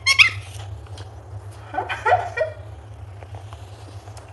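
A pet budgerigar gives a brief high chirp at the start, and a short wavering call follows about two seconds in, over a steady low hum.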